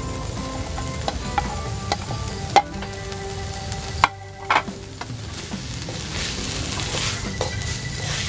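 Chicken curry-puff filling sizzling in a hot pan while it is stirred, with a spatula knocking against the pan several times.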